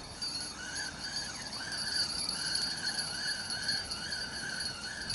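Spinning reel being wound in against a hooked fish: a faint whirring that rises and falls about twice a second with each turn of the handle.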